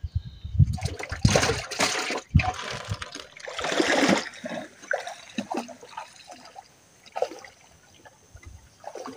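Water splashing and sloshing around a small wooden boat: loud rushes of splashing in the first few seconds, then lighter scattered splashes and trickles.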